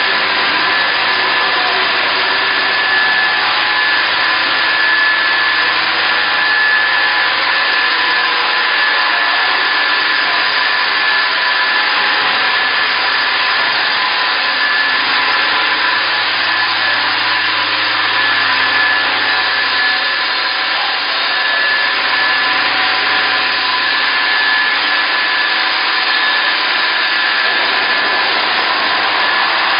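Steady machinery noise of a running milk processing plant: a dense, even hiss with a thin high whine held throughout and a faint low hum beneath.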